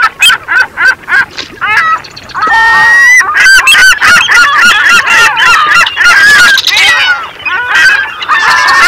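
Many birds honking at once, short calls that rise and fall and crowd over one another, with one longer held call about three seconds in.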